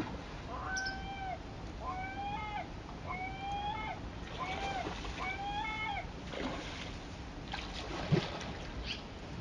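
A gull calling five times over about six seconds, each call a drawn-out, arching note, over the steady rush of river water. A short low thump comes about eight seconds in.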